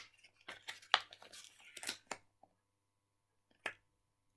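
Handling noise from the Globbles sticky stress balls and their plastic packaging: a quick run of short crinkles, tears and clicks over the first couple of seconds, then one more sharp crackle near the end.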